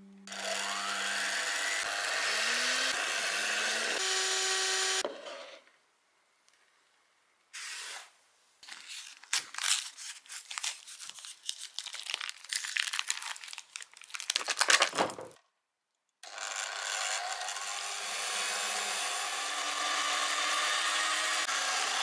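An electric hand mixer runs steadily for about five seconds, whipping cream. Then a foil-wrapped cream cheese packet is crinkled and torn open in sharp, irregular crackles for several seconds. Near the end the hand mixer runs again, beating cream cheese in a glass bowl.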